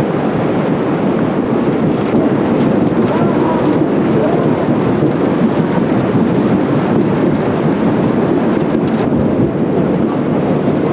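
Steady wind rumbling on the microphone over the continuous rush of water and machinery from the moving paddle steamer Waverley.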